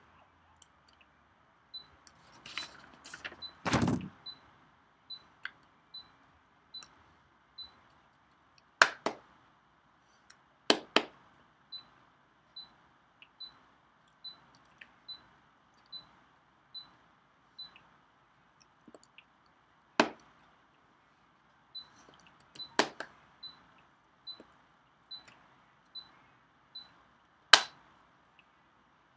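Sharp claps and knocks of hands striking together during sign language, about six in all, the loudest with a dull thud about four seconds in. Behind them is a faint high ticking at a steady pace a little faster than once a second, which stops and starts in stretches.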